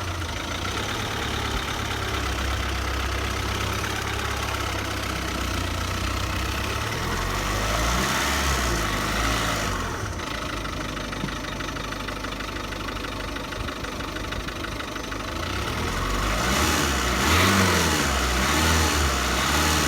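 A Ford's engine running with a rattle. It rises in level about eight seconds in and again near the end, as if revved.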